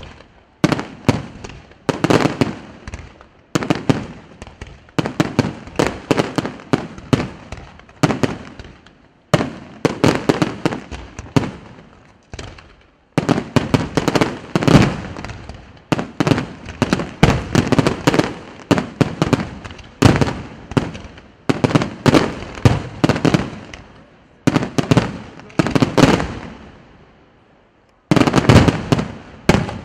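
Aerial fireworks shells bursting in quick volleys, bang after bang with each cluster trailing off in echoes, with brief lulls about halfway through and near the end.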